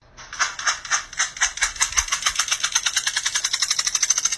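A fast, rhythmic rattling that speeds up steadily from start to finish.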